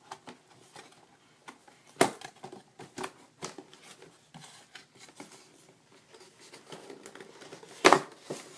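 A paintball mask's packaging being opened and handled: crinkling and rustling with scattered small clicks, and two sharp, loud snaps or knocks, one about two seconds in and one near the end.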